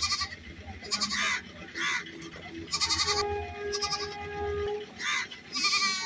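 Repeated short animal calls, about one a second, one of them wavering near the end. A steady held tone joins from about three seconds in.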